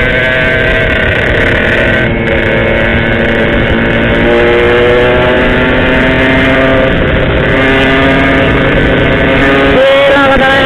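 Yamaha RX-King's two-stroke single-cylinder engine running under way, its pitch climbing slowly and dropping back a few times as the rider shifts gears, with a sharp rise in revs near the end.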